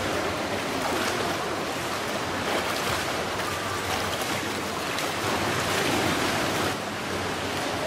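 Swimmers moving through the water of an indoor pool: a steady rushing, splashing wash of water with no distinct single strokes.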